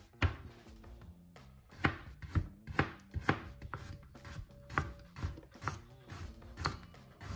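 Kitchen knife slicing a purple sweet potato into half-moons on a cutting board: about a dozen sharp knocks of the blade hitting the board, about two a second, after a pause of over a second near the start.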